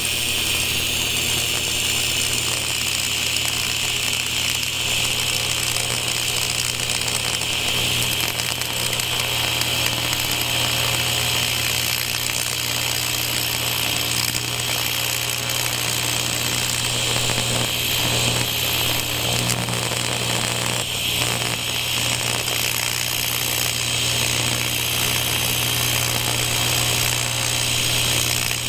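AC TIG welding arc buzzing steadily on a cast aluminum part, a constant hum with a hiss over it. The aluminum is oil-contaminated, and the weld is hard to get to take.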